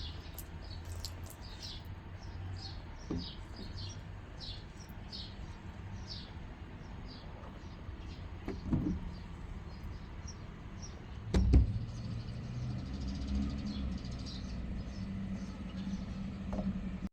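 A small bird chirping over and over, about two chirps a second, over a steady low hum. There are a few household knocks, the loudest about eleven seconds in, and a low steady hum through the last few seconds.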